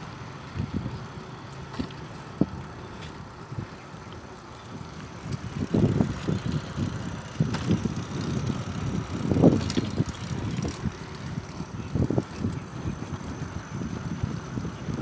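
Bicycle riding along a paved road, heard from the moving bike: steady road and wind rumble on the microphone, with louder surges from about six to eleven seconds in and a few sharp clicks.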